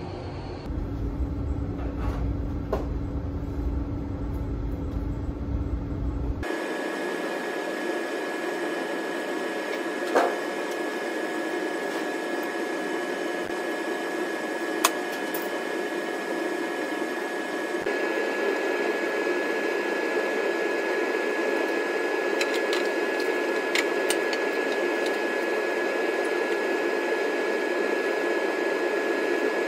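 Elevator running with a low rumble and a steady hum, then, after a cut, the steady hum of lab ventilation with a constant high whine, a little louder from about eighteen seconds in. A few sharp clicks along the way.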